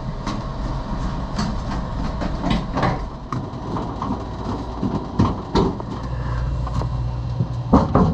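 Irregular clicking, rattling and scraping of hands working the thermostat's sensing bulb into the refrigerator's evaporator coil, over a steady low hum.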